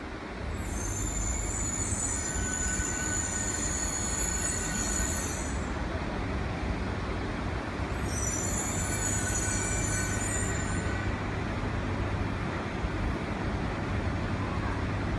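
E3 series Shinkansen train pulling slowly into a station with a steady low rumble, and a high-pitched squeal in two spells: one starting about half a second in and lasting some five seconds, another from about eight to eleven seconds in.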